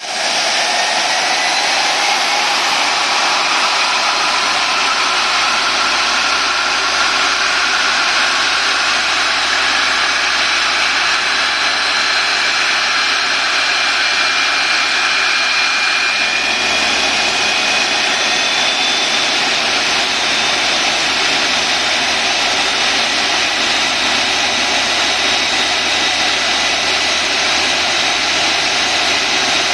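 Airbus A320 jet engine starting up: a loud, steady turbine roar with whining tones that climb slowly over the first quarter-minute as the engine spools up, then hold steady.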